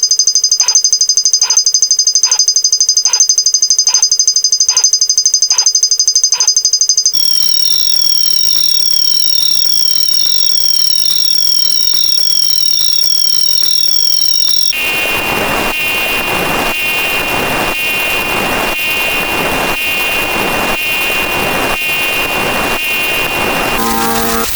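A run of electronic alarm sounds that changes character twice. First comes a high steady two-note tone with a sharp tick a little more than once a second. At about seven seconds it becomes a high steady tone with a falling chirp repeating a little more than once a second. At about fifteen seconds it turns into a harsher, lower ringing alarm that pulses at the same rate.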